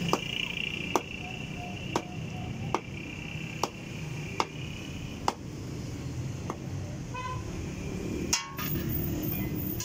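Long machete-style knife chopping through fish on a wooden stump block: sharp knocks about once a second, a louder one near the end.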